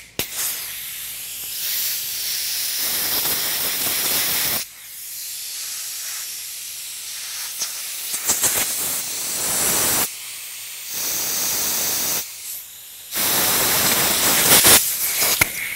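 Compressed-air blow gun hissing in several long blasts with short breaks between them, blowing out the fluid passages of an old brake proportioning valve to clear them.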